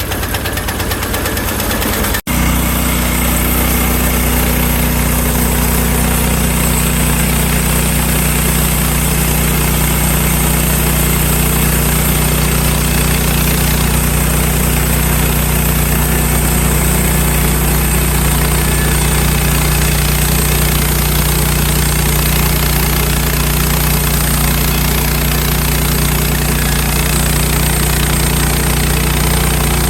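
Small pull-start engine of a portable bandsaw sawmill running steadily at a constant speed, with a brief dropout about two seconds in.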